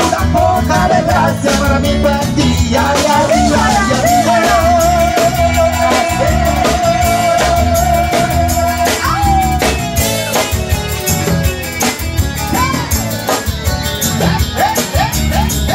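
Cover band playing upbeat party music with drum kit, bass and guitar. About three seconds in, a long wavering note is held for several seconds, then slides down.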